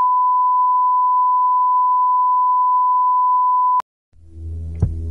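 Steady single-pitch line-up test tone, the kind that runs with colour bars, cutting off abruptly about four seconds in. After a moment of silence, music fades in with a low bass drone and a couple of soft hits.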